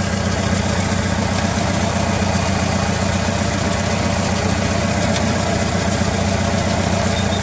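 Air-cooled Volkswagen Beetle flat-four engine idling steadily as it warms up.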